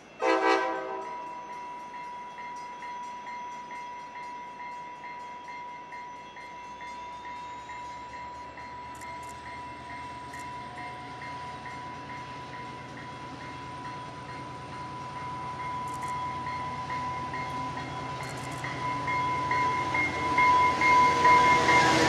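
A commuter train approaching. A short horn note at the start is followed by a steady high ringing that pulses a few times a second. A low rumble sets in about a third of the way through and grows louder toward the end as the train draws near.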